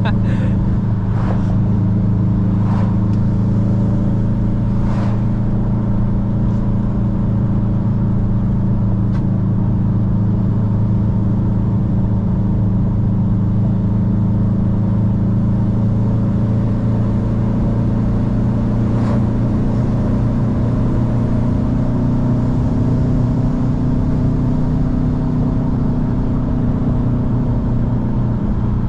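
Modified car's engine droning steadily inside the cabin while cruising, its pitch creeping up and easing back in the last third. A few brief sharp ticks break in near the start and once more later.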